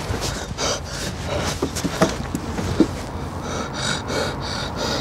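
A teenager panting hard, out of breath from running, with quick breaths about twice a second from a little past halfway. Scuffs and knocks from moving bodies come before the panting sets in.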